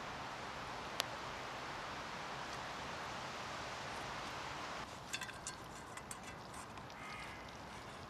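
Steady outdoor hiss with a single sharp click about a second in, a spoon tapping the metal pan. After a cut near the middle, a quieter forest background with scattered light clicks and scrapes from the pan being wiped out by hand, and faint distant bird calls.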